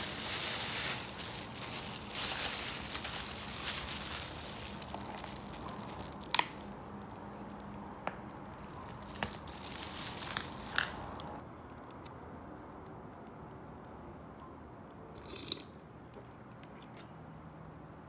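Thin plastic bag crinkling and rustling as it is opened and handled, with several sharp clicks as a clear plastic lid is pried off a paper cup. The rustling stops about two-thirds of the way through, leaving only faint handling sounds.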